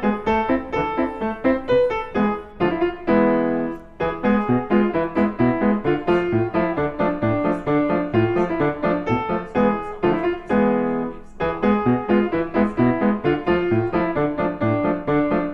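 Background piano music with quick successive notes, pausing on a held chord twice, a few seconds in and again about two-thirds through.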